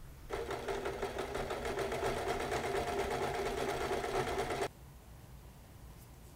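Electric sewing machine running at a steady speed, stitching a seam in black t-shirt knit, with a rapid, even needle rhythm. It starts just after the beginning and stops abruptly about four and a half seconds in, leaving only faint room tone.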